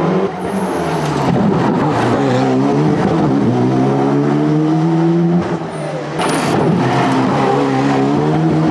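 Alpine A110 rally car's engine revving hard through a tight bend, its pitch climbing and dropping with each gear change as it passes. About six seconds in there is a brief dip with a short sharp crack, then another rally car's engine revving as it approaches.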